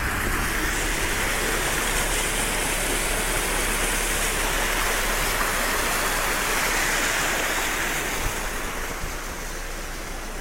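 Shallow stream rushing over stones: a steady wash of running water that eases a little near the end.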